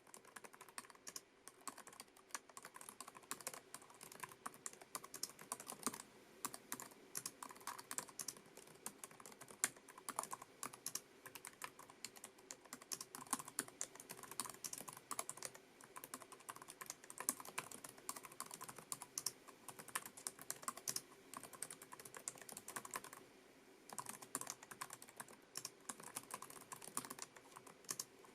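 Fast, continuous typing on a Lenovo ThinkPad TrackPoint Keyboard II, its low-profile scissor-switch keys giving a dense stream of light clicks. There is a short pause about twenty-three seconds in.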